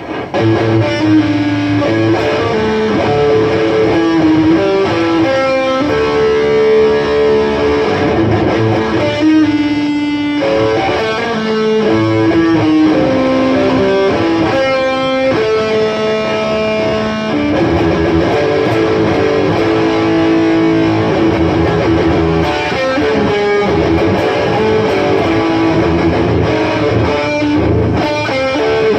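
Guitar music: a melody of held notes changing pitch every second or so over a steady low accompaniment, without a break.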